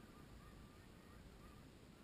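Canada geese honking faintly in the distance, scattered calls over a low steady rumble.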